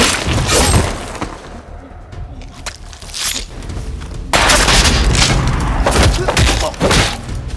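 Action-film fight sound effects: a run of sharp hits and bangs, a quieter lull in the middle, then a dense flurry of strikes from about four seconds in.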